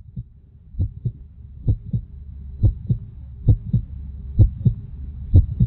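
Human heartbeat amplified through a digital stethoscope's chest piece: steady lub-dub pairs, a little faster than one a second, over a low rumble.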